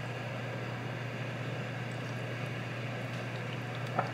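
Steady low hum with a soft hiss, like appliance or room noise in a kitchen, with one faint tap near the end.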